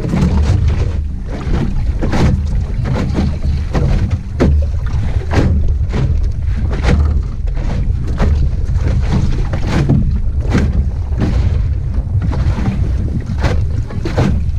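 Optimist dinghy under sail in chop: water slapping against the hull at irregular intervals over a steady low rumble of wind on the microphone.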